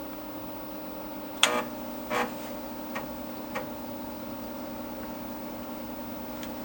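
Steady hum of the Dimension 68000 vintage computer with a handful of sharp clicks, the loudest about a second and a half in, while a game loads after being started from DOS.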